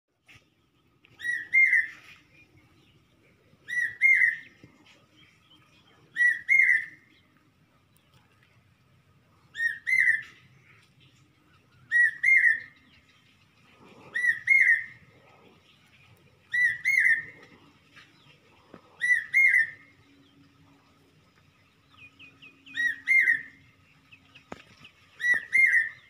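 A bird, which the uploader calls a cuckoo, repeating a loud two-note whistled call about every two and a half seconds, ten times, with a short gap a little past the middle.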